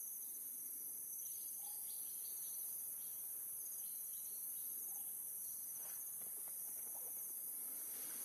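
Steady high-pitched chorus of insects with a faint pulsing trill, and a few soft clicks and rustles in the second half.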